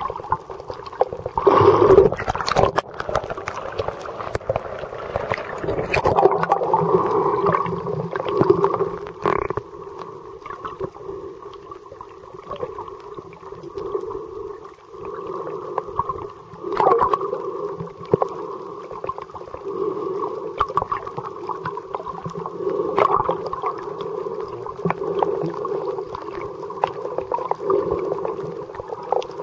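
Muffled underwater sound picked up by a camera under water: a swelling and fading wash of water noise and gurgling, with many small clicks and crackles throughout.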